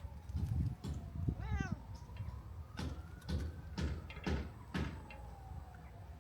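A cat meows once, a short call rising then falling, about a second and a half in. A few sharp clicks follow a couple of seconds later, over a slow wavering siren-like tone and a low rumble.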